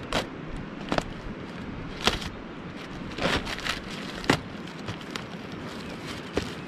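A cardboard parcel being opened by hand: packing tape ripped and cardboard flaps pulled apart in a series of short, sharp tearing and crackling sounds, with a longer stretch of rustling a little past three seconds in.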